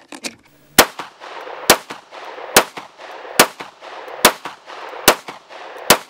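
Bul Armory Axe C Hatchet 9mm pistol firing seven shots at a steady pace, a little under a second apart, each with a short echo.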